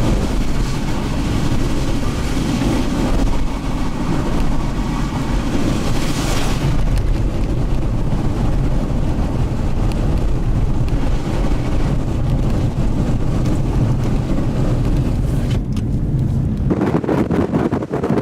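Blizzard wind blowing hard across the microphone: a steady deep rumble with a hiss of blowing snow above it. It changes abruptly near the end, the deepest rumble dropping away.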